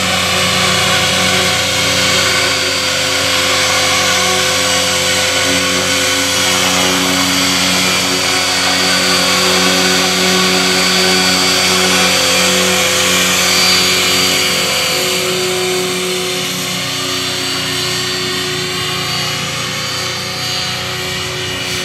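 Align T-Rex 500 electric RC helicopter hovering and manoeuvring: the steady whine of its motor and gears over the whirr of the rotor blades, shifting a little in pitch as the head speed and load change.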